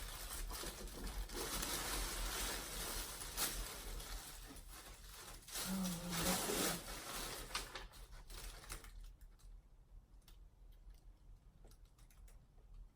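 Paper packaging rustling and crinkling as a gift box is unwrapped, with short crackles, for about nine seconds; after that it goes quiet apart from a few faint clicks.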